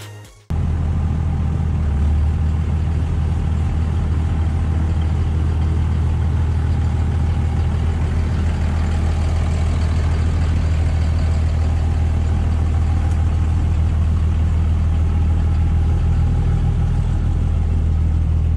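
An engine idling steadily with a deep, even drone. It cuts in abruptly just after the start and cuts off abruptly near the end.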